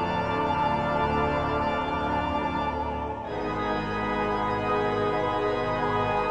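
Slow background music of sustained, held chords, shifting to a new chord about three seconds in.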